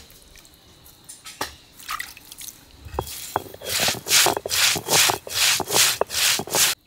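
A stone roller crushing whole fennel seeds on a stone grinding slab (ammi kal), rolled back and forth in an even gritty rasp of about two and a half strokes a second, starting about four seconds in and stopping abruptly near the end. Before that come a few separate knocks and clicks.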